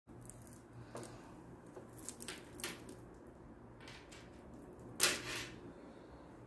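Hands handling a stretchy fabric bikini on a tabletop: a few brief rustles, the loudest about five seconds in, over a faint steady hum.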